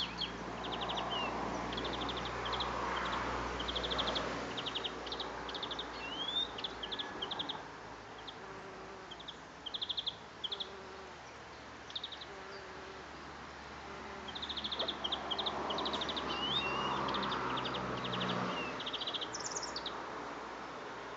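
A large bee buzzing as it forages on lupin flowers, its low hum swelling in the first few seconds and again in the second half. Birds chirp throughout in short, rapid trills.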